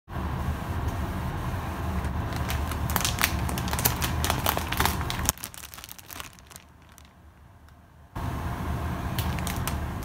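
Clear plastic bag crinkling and crackling as it is handled, in a quick cluster of crackles, with a steady low hum underneath. Everything drops away for about three seconds in the middle, and the crinkling returns briefly near the end.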